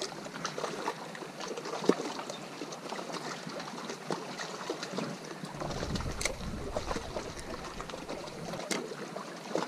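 Small waves lapping against the rocks at the water's edge, with scattered small clicks and taps. Wind buffets the microphone from about five and a half to nine seconds in.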